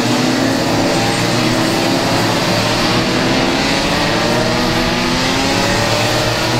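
Several two-stroke racing kart engines running hard at high revs, their overlapping notes mostly rising in pitch as the karts accelerate.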